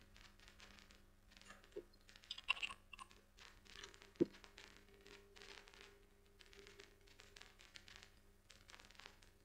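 Faint computer mouse clicks and keyboard keystrokes, scattered and irregular, with one sharper click about four seconds in, over a faint steady low hum.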